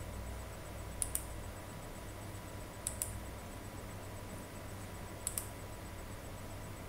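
Three double clicks of a computer mouse, each a quick press-and-release pair, spaced a couple of seconds apart as the presentation slides are advanced, over a faint steady hum.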